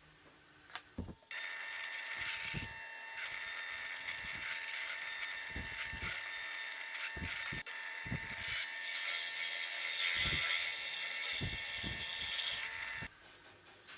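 Electric wood router running at speed: a steady high-pitched motor whine with cutting noise. It starts suddenly about a second in and cuts off suddenly near the end, with light knocks underneath.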